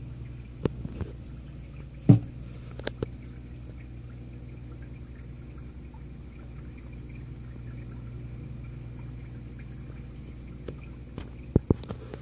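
Steady hum of running aquarium equipment with faint water trickling, broken by a few sharp knocks, the loudest about two seconds in, and a quick cluster of clicks near the end.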